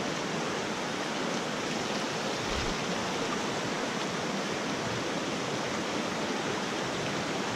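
Shallow mountain creek rushing over rocks and through riffles, a steady, even rush of water.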